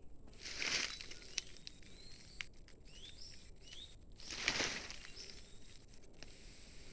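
Faint short rising bird chirps over outdoor ambience, with two brief swells of rustling noise, one about half a second in and one about four and a half seconds in, and a few light clicks.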